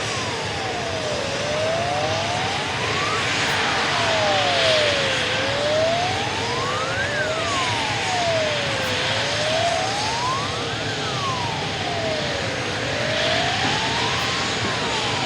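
Emergency vehicle siren wailing, its pitch rising and falling in slow cycles of about four seconds, over a steady background rumble.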